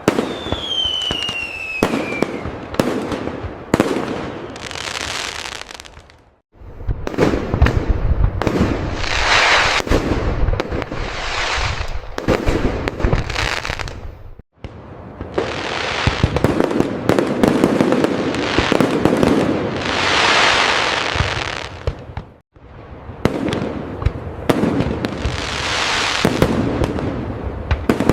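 Fireworks display: rapid bangs and crackling, with a falling whistle near the start. The sound cuts out briefly three times, roughly every eight seconds.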